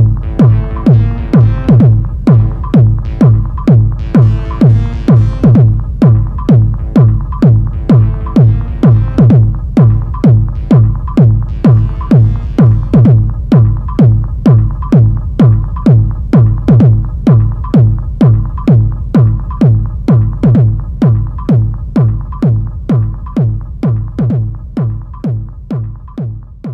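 Live techno played on an Erica Synths Techno System drum-synth rack and an Elektron Octatrack mk.II: a steady four-on-the-floor kick drum about twice a second, with synth and percussion patterns over it. The upper parts thin out about halfway through, and the whole groove fades out near the end.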